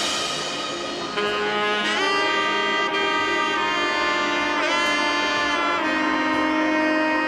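Background music with a lead saxophone playing held notes and a short slide, over a sustained brass or keyboard backing.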